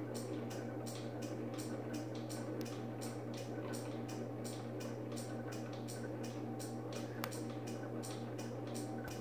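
Whelen Aerodynic 24EAH emergency lightbar running, its rotating lights and flashers making an even, rapid ticking of about four ticks a second over a steady low hum.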